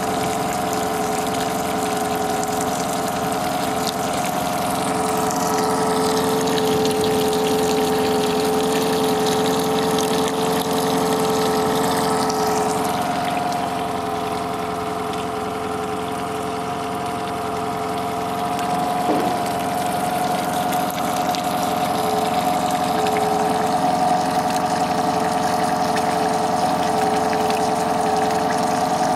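Honda 8 hp four-stroke outboard motor ticking over at a steady idle.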